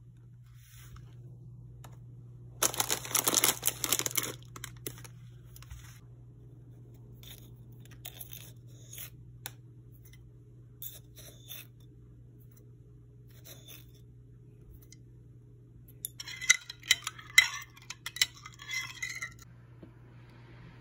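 Food packaging rustled and torn open for a couple of seconds, a few seconds in, then scattered light taps and clicks, and a cluster of sharper clinks and knocks of containers being handled near the end, over a steady low hum.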